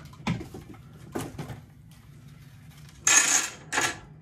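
A homemade Rube Goldberg chain reaction: a few light knocks as a swinging plastic water bottle strikes a tennis ball and the ball runs down a wooden ramp, then a rapid clatter of dominoes toppling one after another about three seconds in.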